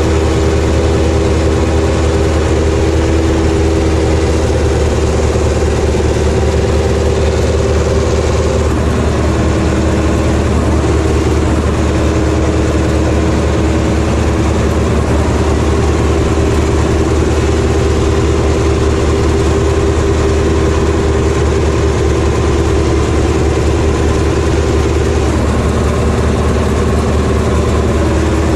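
Ursus tractor's diesel engine working steadily under load, heard from the driver's cab while pulling through the field. The engine note wavers briefly about a third of the way in and again near the end.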